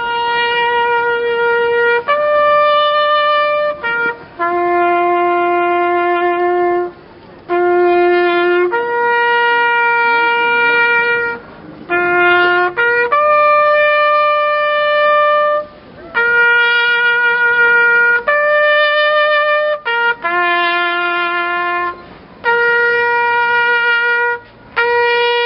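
Bersaglieri fanfare trumpets playing a slow ceremonial melody of long held notes, each one to three seconds long with short breaks between them.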